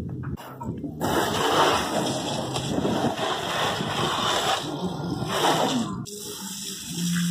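Garden hose spraying water onto a car's body, wheel and the paving around it: a steady, hissing splash that starts about a second in and stops abruptly near six seconds.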